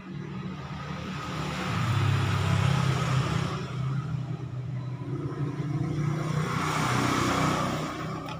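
A motor vehicle going by close at hand, its low engine hum and tyre noise swelling twice, once about two seconds in and again near the end.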